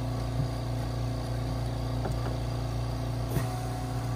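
5-liter home oxygen concentrator running with a steady low compressor hum. A few light taps sound as a cabinet filter is pushed back into its side slot.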